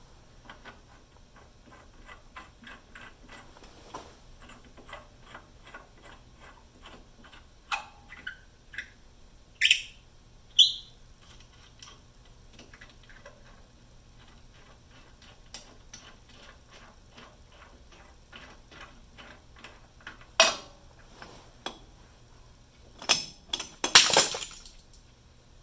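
Hand tools on metal while new studs are threaded into a steering knuckle: a steady run of light clicks, about two or three a second, broken by a few louder metal clanks and scrapes about a third of the way in and again near the end.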